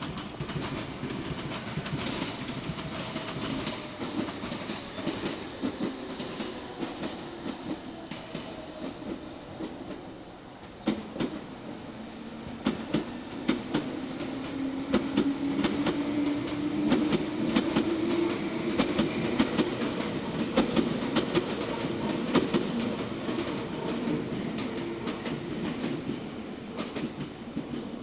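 Meitetsu electric train running over the tracks, its wheels clacking over rail joints in a rapid run of clicks from about a third of the way in, with a motor hum that rises in pitch as it passes.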